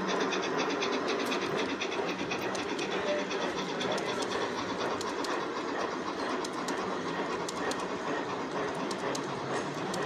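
LGB G-scale model train running: a fast, even rhythmic chuffing hiss from the model steam locomotive for the first few seconds, then the coaches' wheels clicking irregularly over the rail joints.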